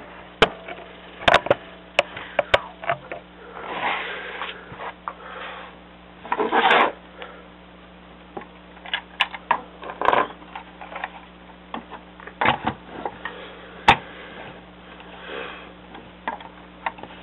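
A built LEGO Slave I model being handled: hard plastic clicks and knocks as it is picked up, turned and set down on a wooden tabletop, with short bursts of rubbing and brushing in between.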